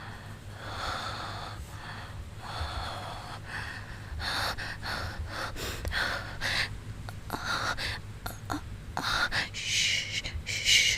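A woman breathing heavily with gasps: long breaths about one a second at first, then shorter, quicker gasping breaths from about four seconds in.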